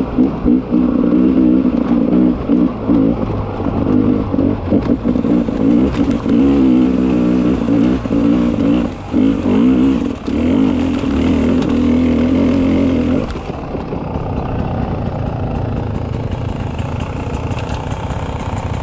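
Beta 300 RR two-stroke enduro motorcycle engine revving on the trail, the throttle opening and closing with short dips in the note. About thirteen seconds in it falls back to a lower, steadier running sound.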